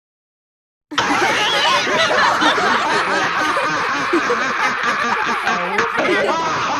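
Silence for about a second, then many people laughing at once, loud and continuous.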